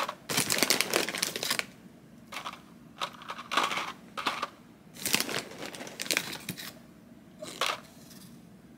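Small hard pretzels being taken by hand from a bag and dropped onto a plate on a food scale: rustling and light clicks, a longer crackly stretch at first, then short bursts about once a second.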